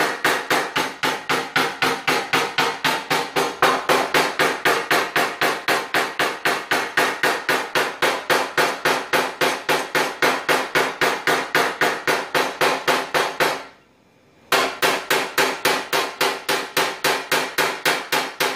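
Rapid, steady light tapping of a dent-repair hammer on a car fender panel, about four to five taps a second, the sheet metal ringing with each tap as ridges and dent edges are knocked down smooth. The tapping stops for under a second near the end, then goes on.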